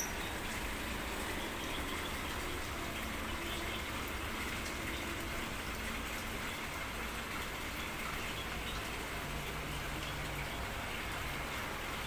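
Steady hiss of water.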